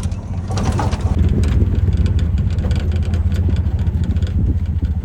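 Engine of a moving vehicle heard from inside during a ride: a steady low hum with a fast, even pulsing beat and some rattling.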